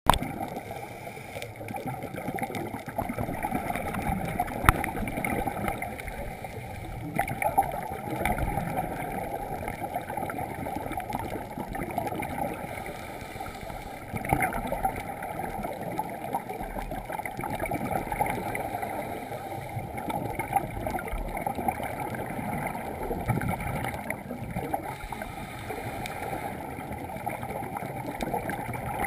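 Scuba regulator breathing heard underwater through a GoPro Hero's waterproof housing: gurgling exhaust bubbles swelling every few seconds over a steady, muffled water noise, with a few sharp clicks.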